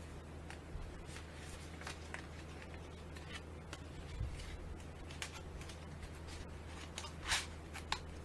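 Cardstock and paper rustling and sliding as a handmade paper recipe folio is handled and closed, in scattered light strokes, with a couple of louder rustles near the end.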